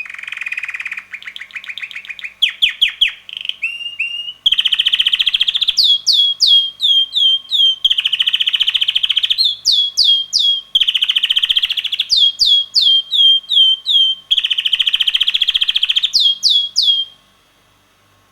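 Young male red canary singing: fast rolling trills alternating with runs of short falling whistled notes, in four repeated phrases. The song stops shortly before the end.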